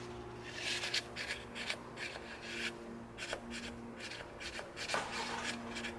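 Tissue on a wooden stick rubbing and scraping around a spark plug down in its wet, rusty plug well, in short irregular strokes as it mops up the damp. A faint steady hum runs underneath.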